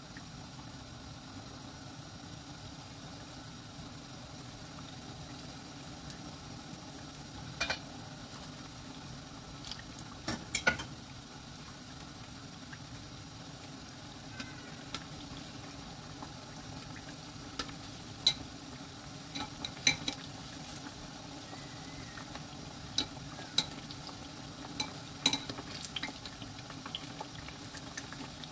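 Battered sweet potato slices deep-frying in hot oil, a steady sizzle and bubble. Metal tongs click sharply now and then against the pot and the pieces as they are turned, most often in the second half.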